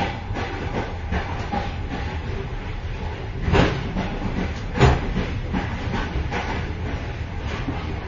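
Moving train heard from inside its vestibule between carriages: a continuous rumble and rattle of the running gear, with two louder clanks about three and a half and five seconds in.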